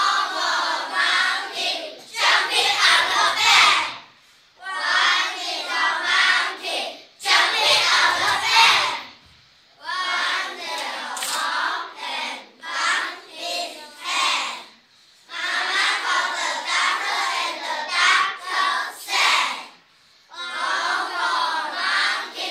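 A group of young children singing a nursery rhyme together in unison, in phrases of a second or two broken by short pauses.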